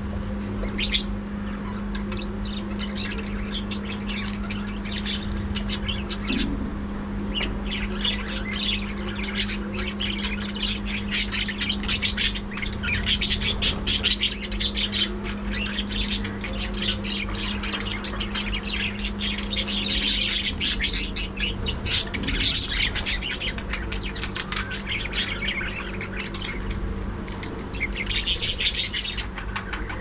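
A colony of budgerigars chattering, a dense, continuous mix of chirps and squawks that swells louder in stretches around the middle and near the end. A steady low hum runs beneath the birds until about two-thirds of the way through.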